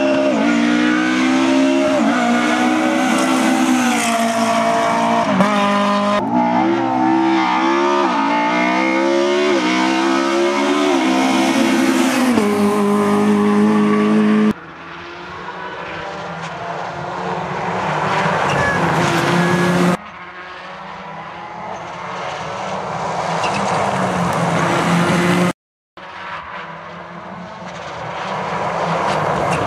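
Rally cars on a stage at full throttle, engines revving up and falling back through gear changes. In the later clips each car comes in rising steadily louder as it approaches, and the sound cuts off abruptly between clips.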